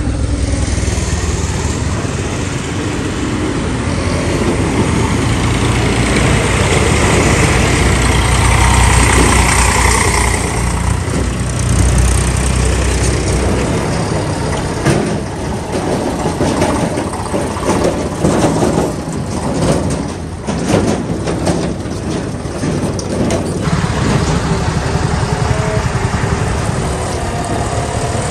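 Heavy diesel engine running steadily, with a stretch of irregular knocks and clatter for several seconds about halfway through.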